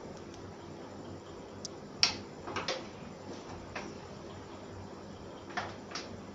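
Irregular sharp clicks and knocks as parts of a 50-year-old hand-fed platen letterpress are handled and set. There are about six, the loudest about two seconds in, a close pair just after it, and two more near the end.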